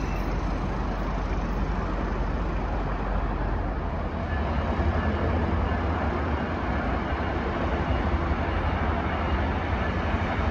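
Steady rumble of a GO train at the station, growing louder and deeper about four seconds in.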